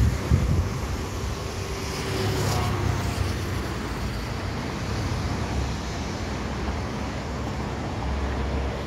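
Steady road traffic noise of passing cars, with wind buffeting the microphone in the first moment.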